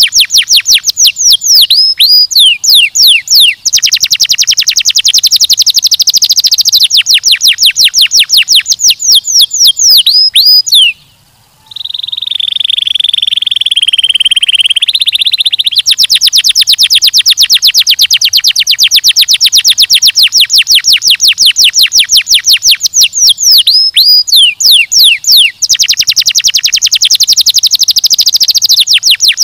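Domestic canary singing loudly in long, rapid trills of repeated high notes, broken by a few quick downward-sweeping whistles. A short pause comes about eleven seconds in, followed by a few seconds of lower, steadier buzzing roll before the fast trills resume.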